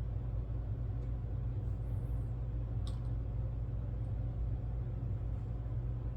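Steady low background hum in a small room, with two faint clicks about one and three seconds in.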